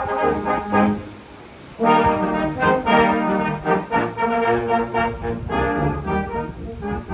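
Brass instruments playing a melody in held notes, with a short break about a second in before the playing starts again.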